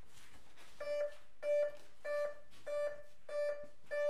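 Radio-control electronics beeping: six short beeps of the same pitch, evenly spaced about one and a half a second, starting about a second in.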